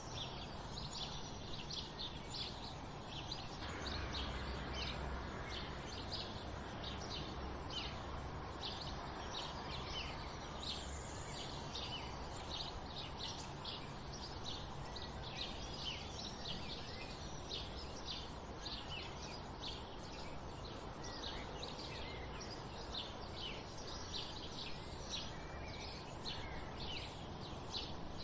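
Dawn chorus of many sparrows chirping busily, with dense overlapping short chirps. Beneath them is a steady low rumble that swells from about four seconds in and eases back by about eleven seconds.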